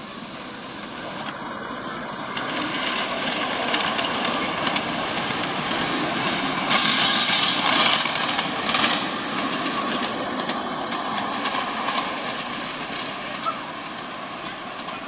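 5-inch gauge live-steam miniature locomotive running past, hissing steam. It grows louder as it comes close, with strong surges of hiss about halfway through, then fades as it moves away.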